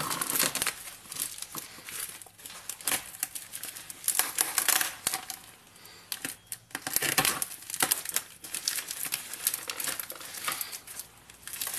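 Black plastic bubble-wrap packaging bound in clear packing tape being pulled and torn open by hand: irregular crinkling and ripping of the plastic film, coming in bursts.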